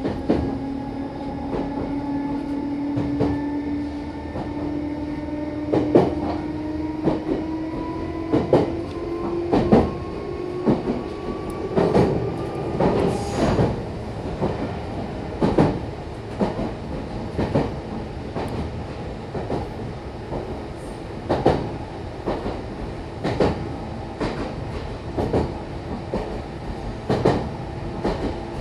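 Running sound inside a Meitetsu Bisai Line electric train car: the motor whine rises slowly in pitch through the first half, and its higher notes drop away about halfway through. Throughout, the wheels clack over rail joints every second or two.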